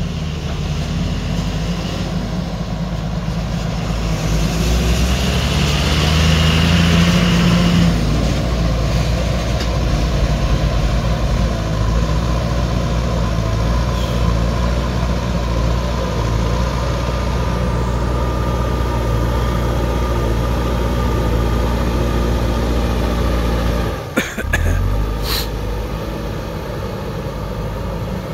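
Diesel engine of a JCB backhoe loader running under load as its front bucket pushes soil. About five seconds in it revs up and runs harder for a few seconds, then settles to a steady working note. Near the end the sound briefly drops out with a few sharp clicks.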